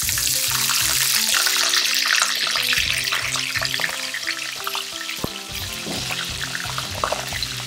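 Freshly soaked and blotted tofu skin frying in hot oil in a small pan: a loud, dense sizzle full of crackles. It is fiercest in the first few seconds after the pieces go in, then eases.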